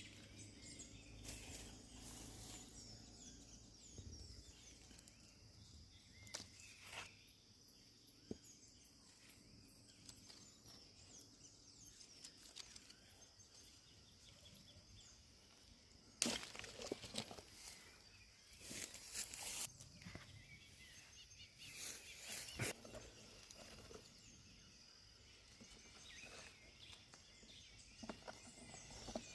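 Quiet countryside ambience with faint bird chirps over a steady high hiss, broken about halfway through by a few louder bursts of rustling.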